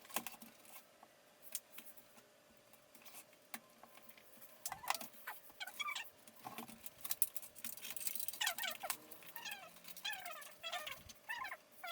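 Light clicks and rattles of hardware being handled, with a run of short, quickly falling high squeaks from an animal starting about halfway through and coming thick and fast near the end.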